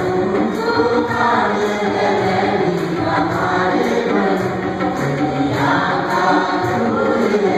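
Small church choir of women and a young man singing an Urdu Christian hymn together through handheld microphones, at a steady level.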